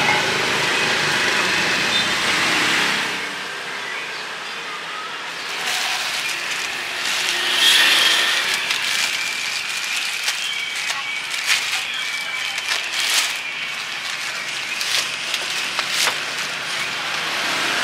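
Street ambience with traffic passing, and scattered sharp clicks and clatter through the second half.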